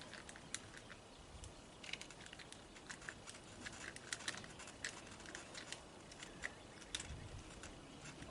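Faint, irregular small clicks and taps of a Phillips screwdriver being turned by hand, snugging the screws of a doorbell mounting plate.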